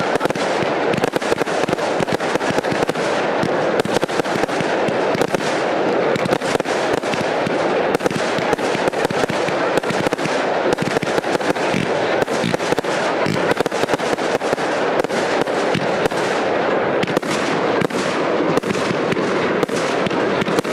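Aerial fireworks going off in a dense, unbroken barrage: many bangs and crackles overlapping, with no pause.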